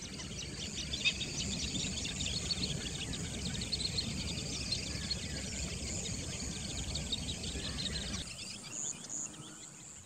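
Outdoor field ambience: insects chirping in a fast, dense high-pitched stream over a low rumble. About eight seconds in the rumble drops away and the chirping turns fainter.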